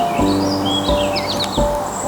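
Background music with held notes and a steady low beat, mixed with songbirds chirping in quick, sharply sweeping notes.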